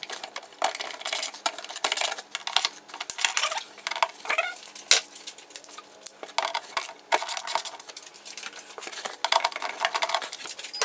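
Ratchet with an extension and T30 Torx bit clicking in quick irregular runs while backing out the screws of the cabin air filter bracket, with light metallic clinks.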